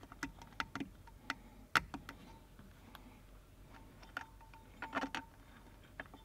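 Small metal clicks and taps as washers and a steel standoff plate are fitted over the studs of a brake booster, a few leaving a brief metallic ring. The sharpest click comes about two seconds in, and a quick cluster of taps follows near five seconds.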